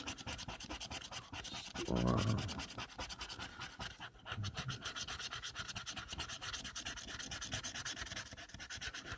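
An instant lottery scratch-off ticket being scratched, in quick even strokes several times a second, with a short voice-like sound about two seconds in.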